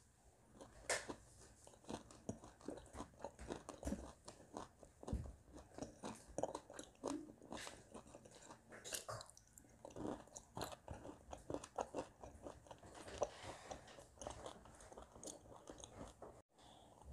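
Close-up crunching and chewing of dry, powder-coated chunks of edible clay, a crowd of irregular crisp crunches that starts about a second in and keeps going.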